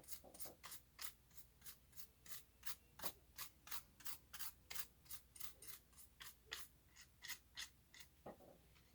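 Faint rhythmic rubbing strokes, about three a second, like a small brush scrubbing dust off the laptop's internal parts.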